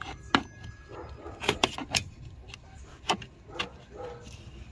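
Plastic clicks and snaps as a forked trim-removal pry tool levers a push-pin retainer out of a Dodge Challenger's plastic windshield-wiper cowl grille. About seven sharp clicks: one just after the start, a quick run of four in the middle, then two more.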